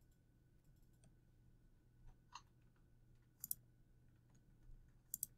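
Near silence with a few faint computer mouse clicks, ending in a quick pair of clicks.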